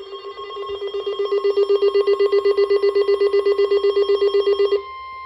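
Emergency alert tones: a harsh electronic tone pulsing about seven times a second, growing louder over the first second and a half, then cutting off about five seconds in and leaving a steady high single tone, the attention signal that comes before a broadcast weather warning.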